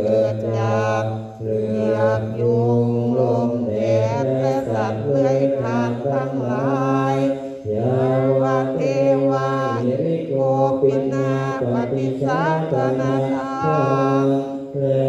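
Group of Thai Buddhist monks chanting the evening prayers (suat mon yen) together on a low, near-steady pitch, with brief breaks for breath about one and a half seconds and eight seconds in.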